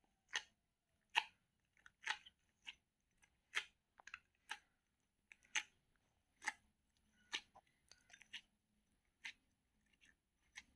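Slime being handled, giving about a dozen short, sharp popping clicks at irregular intervals, roughly one a second.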